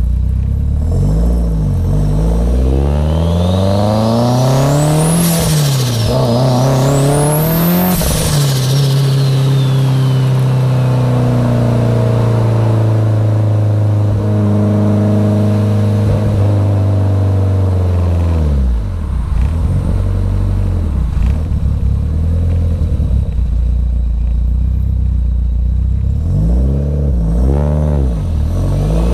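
Mitsubishi Lancer Evolution X GSR's big-turbo four-cylinder engine, heard from inside the cabin, accelerating hard through two gears with a high turbo whistle that rises with the revs and falls at each shift. It then runs steadily at cruise, and later gives several short revs that rise and drop quickly before pulling up through the revs again near the end.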